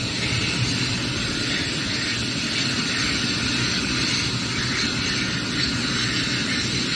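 Helicopter turbine engines running on the pad: a steady whine over a low rumble, holding level throughout.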